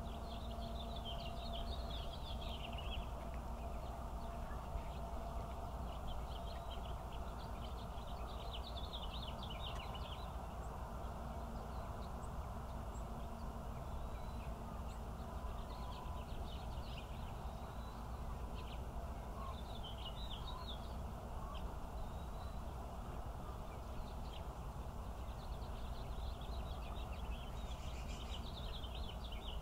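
Canada goose goslings peeping: bursts of quick, high-pitched peeps come every few seconds over a steady low background rumble.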